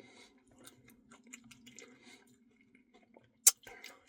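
Close-miked chewing of ice cream with Reese's Pieces and cookie dough: soft wet mouth sounds and small scattered clicks, with one sharp click about three and a half seconds in.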